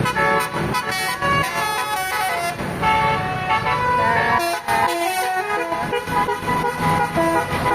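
Indonesian 'telolet' bus horn, a Basuri multi-tone air horn, playing a quick melody of stepped notes that change several times a second.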